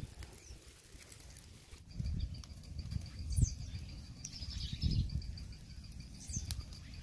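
A wood and palm-frond campfire crackling in faint ticks, with birds chirping, one giving a high, fast-pulsing call from about two seconds in. A few dull low thumps.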